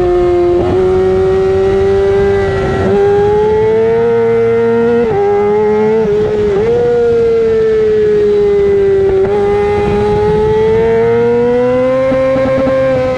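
Yamaha R6's inline-four running at high revs through a LeoVince full exhaust system, ridden hard. Its pitch rises and falls gently, with a few brief dips along the way.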